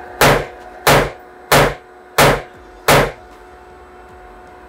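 Five gunshots from an AR-15-style rifle being test-fired, evenly spaced about two-thirds of a second apart, each with a short ringing tail.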